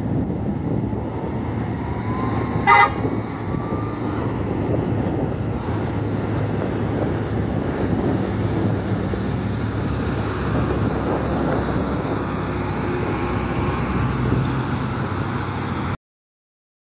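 Heavy bus engine running steadily under load as it climbs a mountain road, with one short, loud horn toot about three seconds in. The sound cuts off abruptly near the end.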